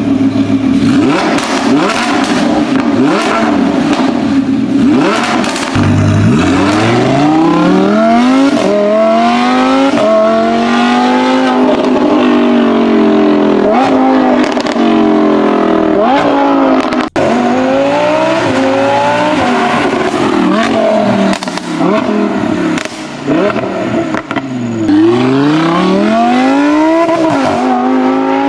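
Lamborghini Huracán LP610-4's naturally aspirated V10 through a Fi Exhaust valvetronic catback, revving and accelerating hard. The pitch climbs again and again and drops back as it goes up through the gears. The sound breaks off abruptly for a moment about two-thirds of the way through.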